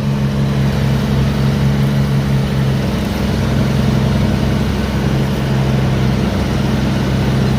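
Case IH 1680 combine harvester running steadily, its diesel engine and machinery giving an even low drone with a constant hum.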